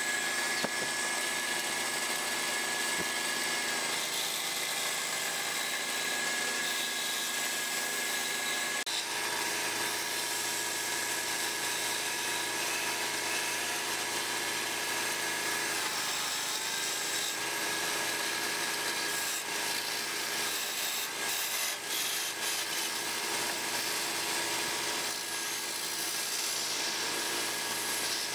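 Wood lathe running with a steady motor whine while a hand turning chisel cuts the spinning wooden blank, giving a continuous hiss of wood being shaved.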